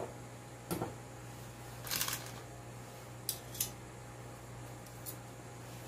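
A spoon and food being handled on a plate as a topping is added to a sandwich wrap: a few light clicks and one longer scrape about two seconds in, over a steady low hum.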